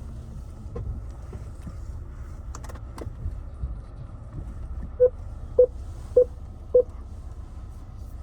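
Car engine and cabin rumble, heard from inside the car, with a few clicks and knocks in the first few seconds. About five seconds in, a dashboard warning chime beeps four times, about 0.6 s apart.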